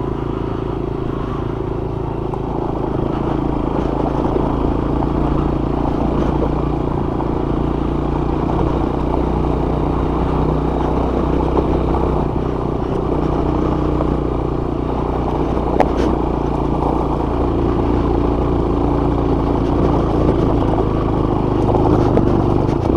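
Motorcycle engine running at a steady pace while being ridden, with road and wind noise. A single short click about sixteen seconds in.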